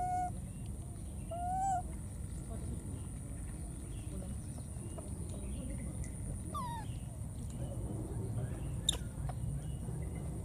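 Baby macaques giving short, high coo calls, each one rising and falling: one at the start, another a second and a half later, and a quicker falling squeak past the middle. A single sharp click comes near the end, over a steady low rumble.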